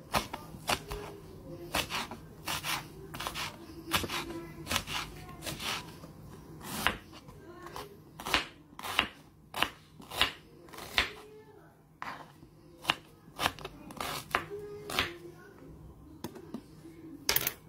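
Kitchen knife chopping red chillies and a red onion on a plastic cutting board: irregular sharp taps of the blade striking the board, one or two a second.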